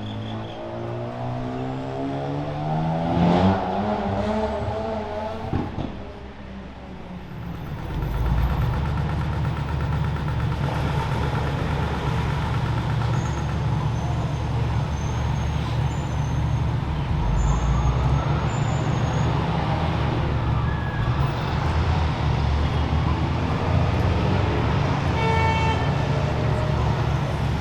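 City street traffic: a motor vehicle accelerating with its engine pitch rising over the first few seconds, then a steady low traffic rumble, with a brief high-pitched tone near the end.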